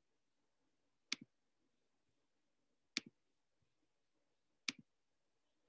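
Three clicks of a computer mouse button, spaced nearly two seconds apart, each a sharp press followed by a softer release, over near silence.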